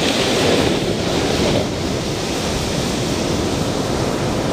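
Ocean surf: waves breaking and washing up on a sandy beach, a loud rush that is strongest for the first second and a half, then settles to a steady wash.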